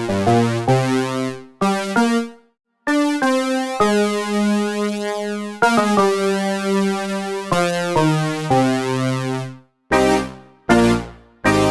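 Roland D-50 software synthesizer playing a phrase of pitched notes and chords in a bright, overtone-rich patch. Each note starts sharply and fades away, with a few short breaks between phrases.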